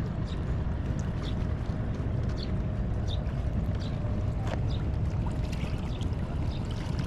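Fishing-harbour ambience: a steady low rumble of boats, with scattered light knocks and clinks.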